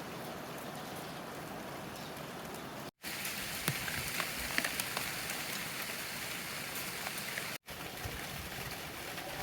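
Steady heavy rain falling, a dense even hiss of drops. About three seconds in the sound cuts out for an instant and comes back louder, with sharper individual drop hits, then cuts out again briefly about two-thirds of the way through and returns to the softer hiss.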